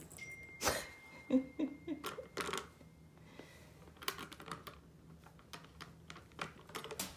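Plastic cat toys clicking and tapping as a kitten bats at them and a spring-wand mouse toy is jiggled: light, irregular clicks scattered throughout.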